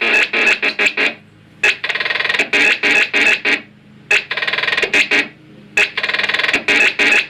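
Synthesizer playing a fast run of short repeated plucked notes, about five a second, broken by brief pauses about a second in, near the middle and past the middle, with denser, more sustained stretches between them.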